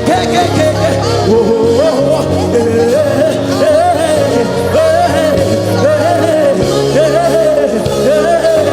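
Slow gospel worship music played live on keyboard and bass, sustained chords and low bass notes under a voice singing a wavering, ornamented melody with vibrato.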